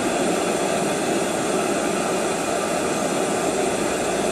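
BRS-3000T ultralight canister gas stove burning at full output, a steady, even rushing noise, heating a heat-exchanger pot of water that is close to the boil.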